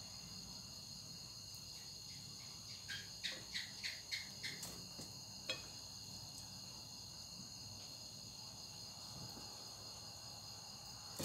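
Steady high trilling of crickets, with a quick run of light clicks from metal tongs handling the chicken about three to four and a half seconds in, and one more click about a second later.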